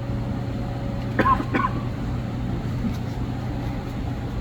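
Steady low mechanical hum, with two short, sharp pitched sounds a little over a second in, about a third of a second apart.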